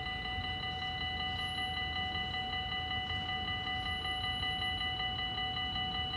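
Railway level-crossing warning bell ringing continuously with a rapid, even ring, signalling an approaching train, over a low background rumble.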